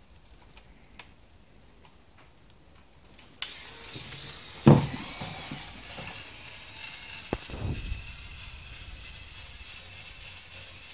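Small clicks as the Lego Technic 4x4 model's centre differential is locked by hand. About three seconds in, the model's electric motor and gear train start up suddenly and run with a steady whirring as it drives up the ramp with the centre diff locked. A loud thump comes soon after, with smaller knocks a few seconds later.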